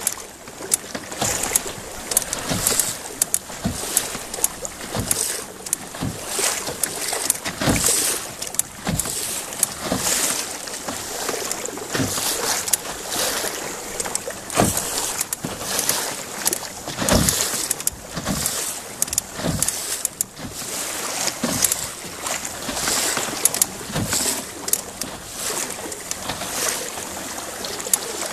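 Choppy lake water slapping and splashing against the hull of a moving canoe, in irregular sharp smacks several times a second over a steady rush of water.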